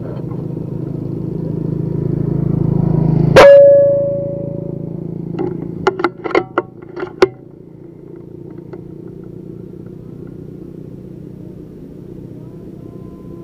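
A single air-rifle shot firing a slug about three seconds in: a sharp crack with a short ringing tone that fades over about a second. A low hum grows louder up to the shot, and a quick run of about six sharp clicks follows a couple of seconds later.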